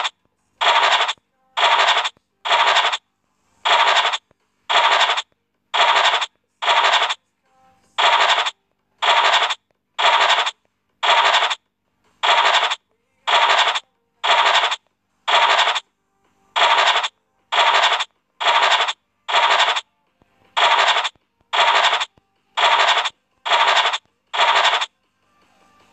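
Online scratch-card game's scratching sound effect, a short scrape each time a hidden number is uncovered, repeated about once a second some two dozen times in groups of four.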